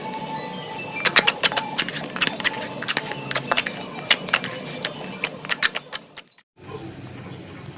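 Slime being worked by hand, making a run of sharp, irregular clicks and pops, several a second. The clicks stop suddenly near the end.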